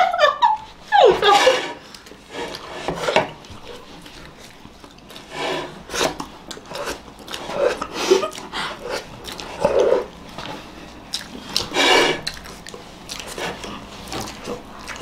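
Eating noises from faces pressed into plates of cream cake, eaten without hands: scattered slurps, smacks and the rub of faces against the plates. A short laugh near the start.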